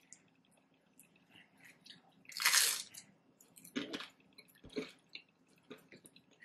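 A person eating loaded chicken nachos close to the microphone: one loud crunch of a bite into tortilla chips about two and a half seconds in. Quieter crunches follow near four and five seconds, among small wet chewing clicks.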